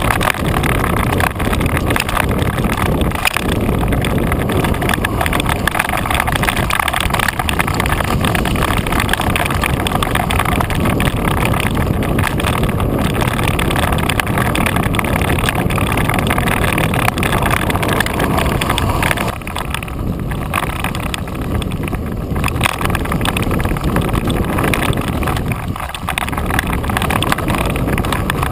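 Wind rushing over a GoPro clamped to a mountain bike's front suspension fork, mixed with the 29-inch front tyre rolling and rattling over a dirt trail: a loud, steady rush that eases a little about two-thirds of the way through.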